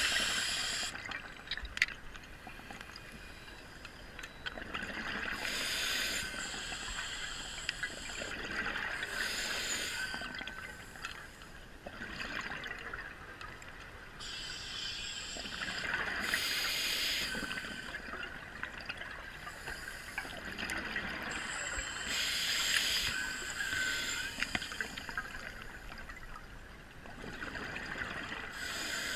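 Scuba regulator breathing underwater: a bubbling gush of exhaled bubbles about every five to seven seconds, with a steady hiss between.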